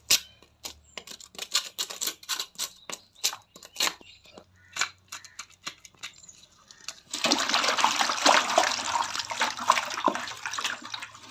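A knife scrapes and cuts a murrel (snakehead) fish on a wooden board in a quick series of sharp strokes. About seven seconds in, this gives way to loud splashing as hands wash the fish in a basin of water.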